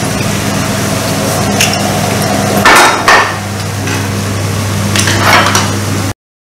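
Chopsticks and spoons clinking against ceramic bowls during a meal over a steady electrical hum, with two louder short noises about three seconds in and again near five and a half seconds. The sound cuts off suddenly just before the end.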